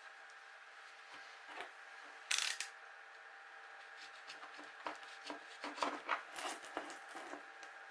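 Scattered rubbing and clicking handling noises over a faint steady hum, with a louder scrape about two and a half seconds in and a quick run of clicks and rubs in the second half.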